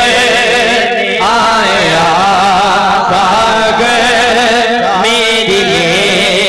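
Male naat reciter singing an Urdu naat in long, drawn-out melismatic phrases with a wavering vibrato, over a steady held drone note.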